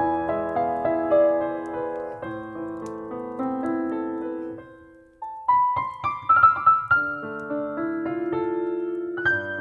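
Solo piano playing a slow, gentle melody; one phrase dies away to near silence about halfway through, then a new phrase begins.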